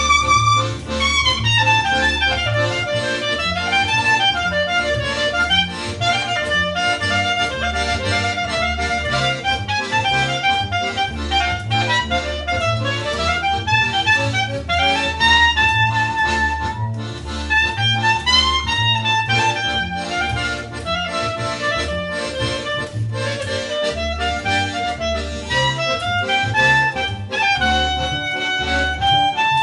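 Live instrumental music: an accordion carries a moving melody over a steady, pulsing bass line.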